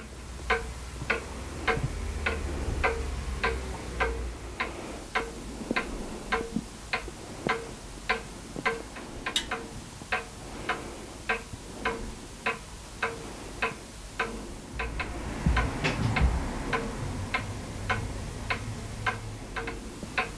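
A clock ticking steadily, about two ticks a second.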